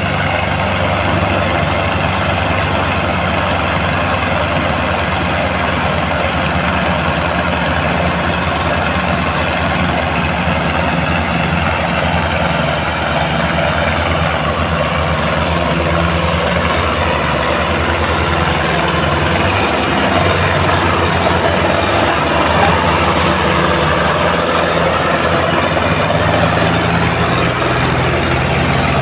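Diesel engine of a Sonalika DI 750 tractor running steadily as it pulls a heavily loaded straw trolley through a soft, muddy field; it gets a little louder about two-thirds of the way through.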